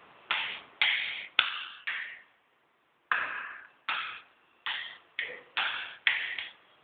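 About ten sharp taps or knocks, unevenly spaced with a short pause after the first four, each ringing out briefly in a small tiled bathroom.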